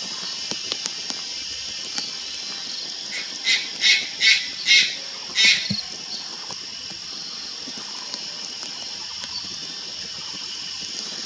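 Juvenile Malayan night heron calling: a quick run of five short calls about half a second apart, starting about three seconds in, over a steady high-pitched hiss.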